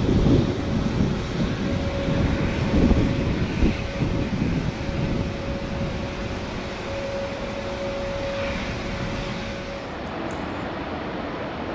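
Jet engines of a departing Boeing 787-8 airliner, with gusts of wind buffeting the microphone. The rumble eases off as the aircraft moves away. The sound changes about ten seconds in.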